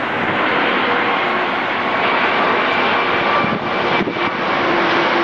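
Airbus A340 four-engine jetliner on landing approach, gear down, passing low overhead: a loud, steady jet rumble with a few faint whining tones running through it.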